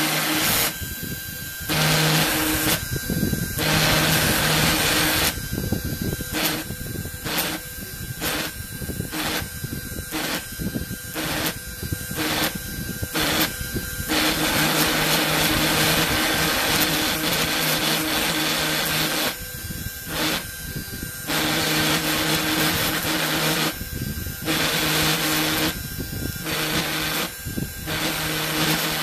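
Desktop CNC engraver's DC spindle motor running with a steady hum while the bit cuts into acrylic. The cutting noise comes and goes in short stretches, about one to two a second, with one long unbroken stretch midway, as the machine traces out lettering.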